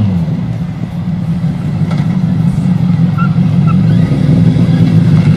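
LADA 2101 with a swapped-in Kawasaki ZZR1100 inline-four motorcycle engine driving toward the listener at a steady pitch. The rough engine note grows louder as the car approaches.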